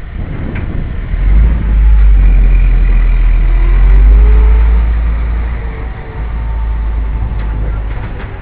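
Motor vehicle engine running on the street. Its pitch rises and later falls over a heavy low rumble that swells about a second in and eases off past the middle.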